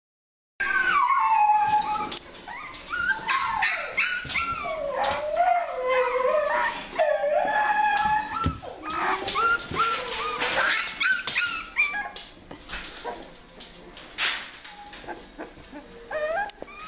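Young puppies whining and crying in high, wavering cries that rise and fall in pitch, loudest through the first twelve seconds and fainter after.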